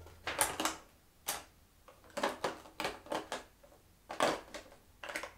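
Plastic LEGO Technic parts and the box's plastic insert tray being handled by fingers: irregular light clicks and rustles, about a dozen in a few seconds.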